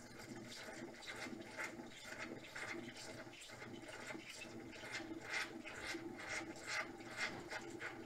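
Zelmer ZCM7255 espresso machine's steam wand frothing milk in a glass cup: an uneven, rasping hiss in quick irregular pulses over a steady machine hum.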